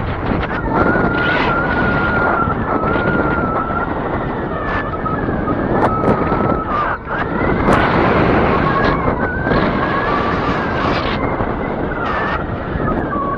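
Wind buffeting the microphone on an Arrow 9a electric bike riding at full throttle in its top speed setting, with a thin steady motor whine that wavers and dips slightly in pitch about two-thirds of the way through.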